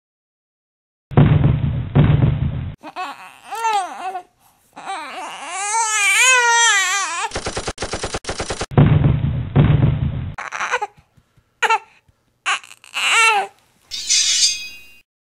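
Dubbed-in war sound effects: two heavy gunshot blasts about a second in, a rapid burst of machine-gun fire in the middle, and two more blasts after it. Shrill human vocal cries with wavering, sliding pitch fill the gaps between the shots.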